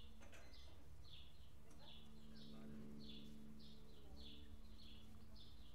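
A small bird calling over and over: short high notes, each dropping slightly in pitch, about two a second. A faint low hum runs underneath, swelling a little about halfway through.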